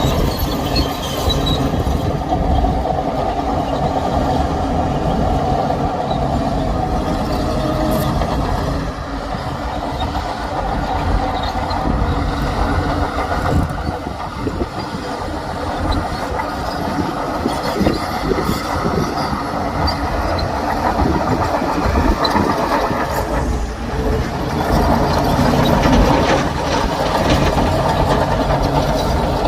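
Bulldozer working: its diesel engine running under load with steel crawler tracks clanking and rattling. The level dips briefly twice.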